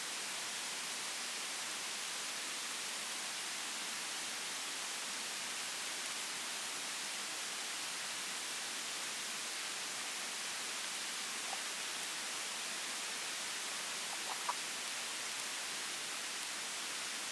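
A steady, even hiss with a few faint ticks near the end.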